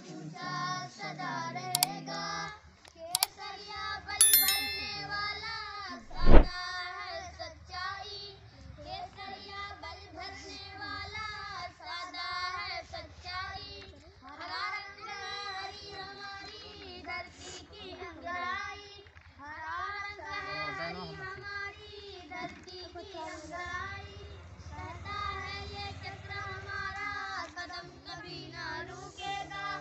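A group of children singing a patriotic song together, with held, wavering notes. A few sharp clicks and a short ringing clang come in the first few seconds, and a loud thump about six seconds in.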